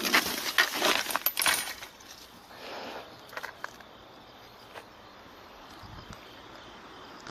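Clicking and rattling of small hard objects: a busy burst of clicks in the first two seconds, then a few scattered clicks.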